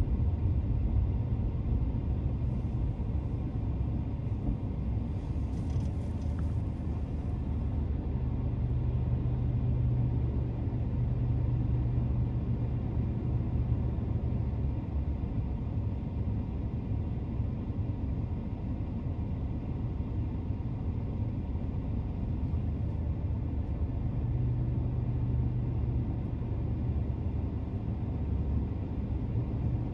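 Car cabin noise while driving: a steady low rumble of tyres and engine, heard from inside the car. A low hum swells for a few seconds about eight seconds in and again near the end.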